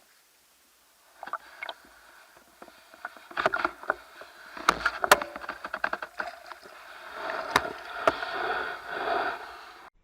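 Water splashing and sloshing, broken by sharp irregular knocks and clicks, getting busier in the second half.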